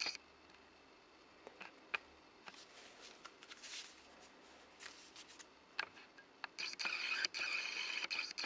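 Cardboard and paper packaging of a CD album being handled: light scattered taps and rustles, then a louder stretch of rubbing and sliding for the last couple of seconds.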